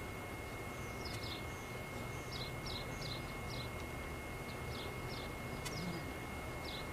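A small bird chirping: a series of short, high, falling chirps, about two or three a second, starting about a second in, over a steady low outdoor rumble and hiss.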